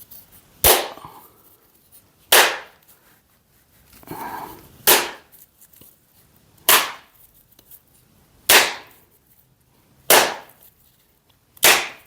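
A small hammer striking a coconut's shell to crack it open: seven sharp taps, one every second and a half to two seconds, with a faint rustle of handling around the middle.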